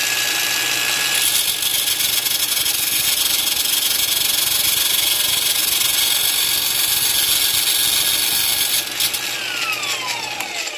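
Angle grinder whining at full speed and grinding metal for about seven seconds, with a harsh hiss over its steady motor whine. It is then switched off and winds down in a falling whine near the end.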